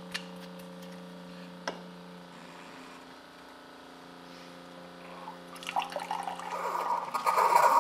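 Keurig single-serve coffee maker humming steadily while brewing a hot cocoa pod. About five and a half seconds in, hot cocoa starts streaming into a glass mug, and the pouring sound grows louder toward the end.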